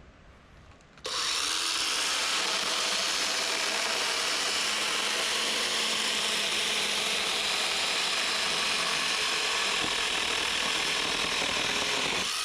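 KEBTEC DLA-0017 electric chainsaw running and cutting through wood, starting about a second in with a steady, loud sound and stopping abruptly near the end.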